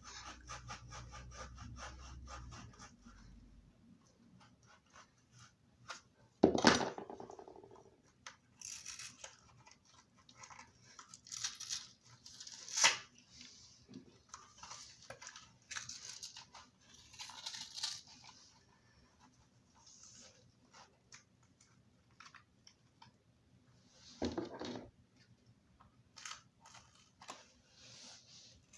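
Scissors snipping and tearing into a Moon Ball bouncy ball's rubbery shell, in irregular bursts of short cuts. Two louder thumps come about a quarter of the way in and near the end.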